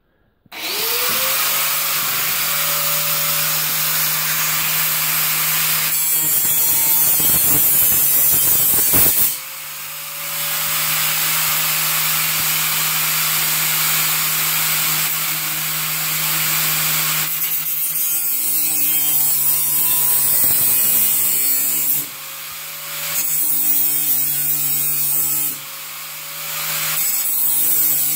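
Electric angle grinder spinning up and cutting into a thin perforated stainless-steel cutlery caddy, a bright grinding hiss over the steady motor hum. The cutting breaks off and resumes several times as the grinder is lifted and put back to the metal.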